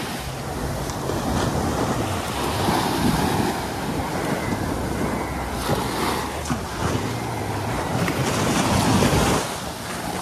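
Sea waves washing onto a beach, with wind buffeting the microphone in gusts that swell louder near the end.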